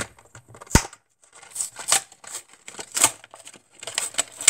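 A Hot Wheels carded blister package being torn open by hand: the plastic blister and cardboard backing crinkle and crackle in a series of short rustles, with a sharp snap about three-quarters of a second in and a few quick clicks near the end.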